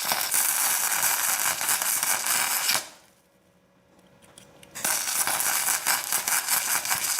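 Welder laying weld in two runs of about three seconds each with a short pause between, a steady crackling buzz, building up a bolt welded onto a stuck, broken bolt so it can be turned out.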